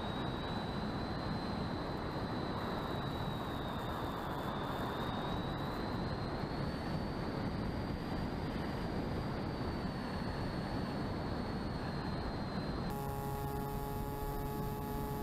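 Electric RC plane's motor and propeller heard from the onboard camera in flight: a steady high whine that drifts slightly up and down with throttle, over rushing air noise. About two-thirds of the way in it gives way abruptly to a steady, lower hum made of several tones from the second plane's motor.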